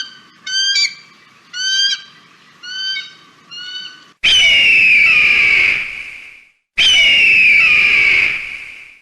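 Hawk calls: five short calls, each rising in pitch, over the first four seconds, then two long, loud screaming calls of about two seconds each that fall in pitch at the start and then hold steady.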